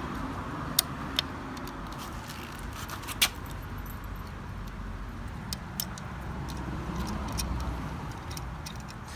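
Small metallic clicks and clinks from handling parts of a bicycle's rear disc brake caliper, a few sharp ones in the first few seconds, over a steady low rumble.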